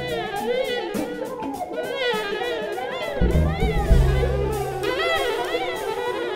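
A jazz septet playing: fast, winding melody lines from the wind instruments over a drum kit's steady cymbal strokes, with low bass notes coming in about three seconds in.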